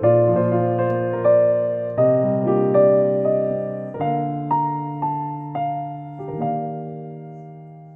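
Background music: a slow, gentle electric piano melody with sustained chords, fading out near the end.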